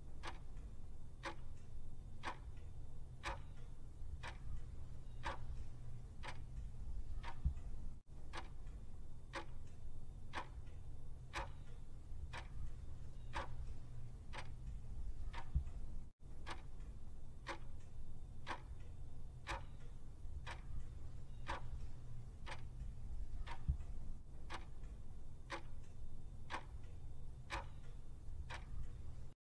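Clock-tick sound effect of a quiz countdown timer, ticking evenly about once a second over a low steady hum, with two momentary dropouts.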